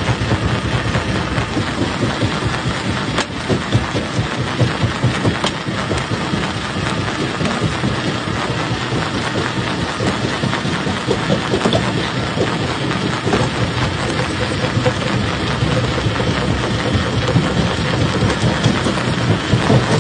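Stone jaw crusher running under load: a steady machine drone beneath a dense, continuous clatter of rock being crushed.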